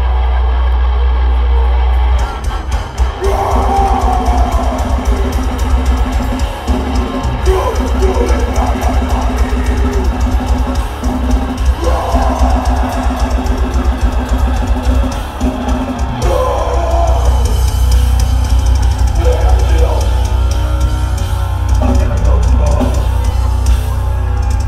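Heavy metal band playing live and loud: distorted bass and guitars hold a heavy low drone, then from about two seconds in the drums come in with rapid hits and cymbals. A harsh vocal line enters in repeated phrases every few seconds over the riff.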